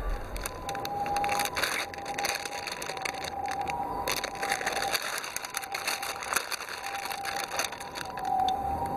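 Plastic snack wrapper crinkling and rustling as hands handle a bag of cream puffs, in dense irregular crackles that begin about half a second in.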